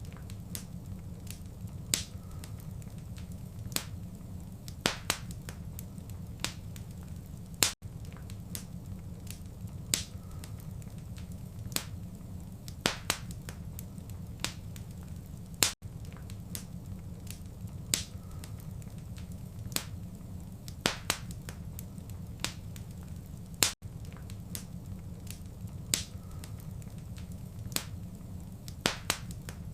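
Wood fire crackling in a fireplace: irregular sharp pops and snaps over a steady low rumble. About every eight seconds the sound drops out for an instant.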